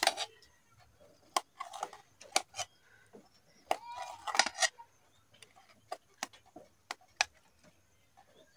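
Kitchen knife peeling green plantains: a string of short, sharp clicks and scrapes as the blade cuts and strips the skin, with a louder cluster of sounds about four seconds in.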